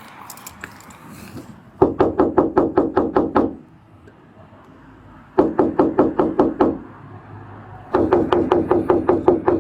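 Rapid knocking, about six blows a second, in three bursts with short pauses between.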